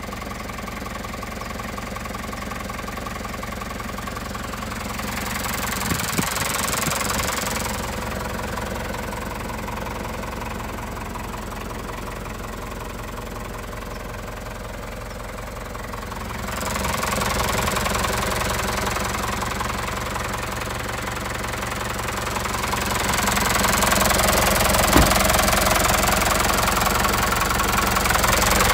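Mitsubishi Canter FE63 truck's four-cylinder diesel engine idling steadily, growing louder as the microphone moves close to the underbody near the end. A brief knock about six seconds in and another a few seconds before the end.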